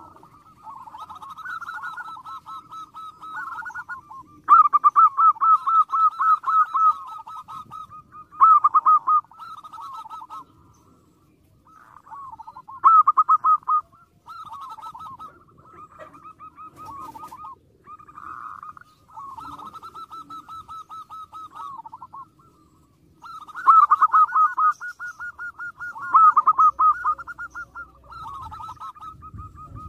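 Zebra dove (perkutut) cooing: trains of quick, rippling notes repeated in phrases a few seconds long, with brief pauses between them.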